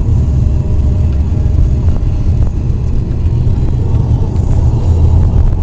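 Steady low rumble of a car driving, heard from inside the cabin: engine and road noise with no sudden events.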